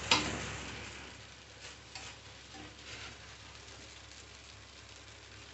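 Maggi noodles frying in oil in a metal kadai while being stirred with a spoon and spatula: a sharp knock of the utensil on the pan at the start, then a sizzle that dies down over the first couple of seconds, with a few light taps and scrapes.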